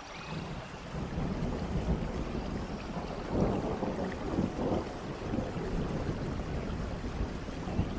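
Recorded nature ambience under a meditation: a low rumbling wash of noise that swells about a second in, with louder surges around the middle.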